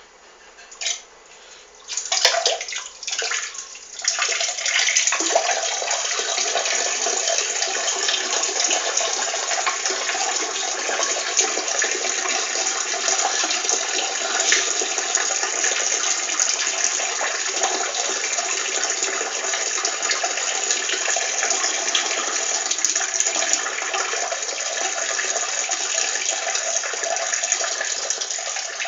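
A person urinating: a few short spurts, then a steady, even stream of urine splashing from about four seconds in.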